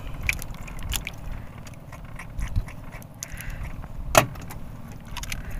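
Small clicks and knocks of fishing tackle being handled in a small boat, with one sharper click about four seconds in, over a low steady rumble.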